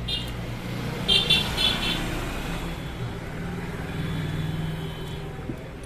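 A motor vehicle's engine running with a steady low hum, with a few short high-pitched tones about a second in.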